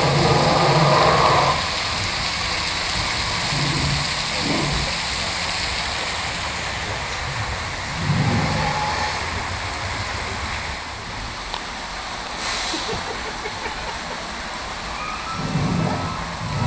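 Steady rushing and splashing of water from an artificial waterfall and the ride's water channel, with a few brief low sounds about four seconds in, about eight seconds in and near the end.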